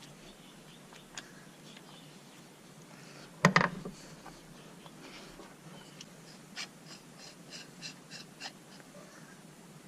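Hand tools and parts being handled at the oil filter housing of a 2.7 L EcoBoost: one sharp metal clank about three and a half seconds in, then a quick run of light clicks in the second half.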